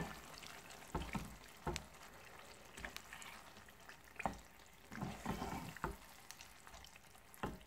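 Marinated chicken pieces being stirred into a thick masala in a nonstick pan with a plastic spatula: scattered scrapes and taps of the spatula against the pan over a faint sizzle.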